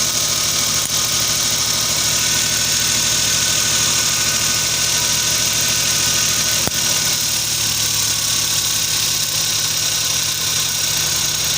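Suzuki K6A three-cylinder engine idling steadily while it is checked for a misfire, which the mechanic puts down to a spark plug. A single sharp click comes about two-thirds of the way in.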